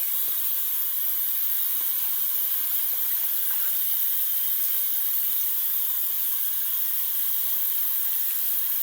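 Tap water running steadily into a sink, an even hiss with no change.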